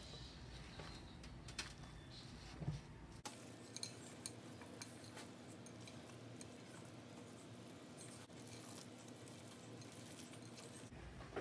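Faint sounds of raw meatloaf mixture being mixed in a bowl: a wooden spoon stirring with scattered light clicks, then, after a few seconds, hands squeezing and kneading the ground meat.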